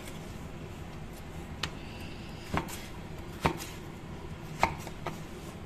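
Kitchen knife cutting raw peeled potato into thick strips, with five sharp knocks about a second apart as the blade strikes a wooden chopping board.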